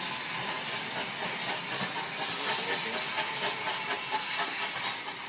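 GWR 57xx-class 0-6-0 pannier tank steam locomotive No. 9681 pulling its train away: a steady hiss of steam with faint irregular knocks from the train.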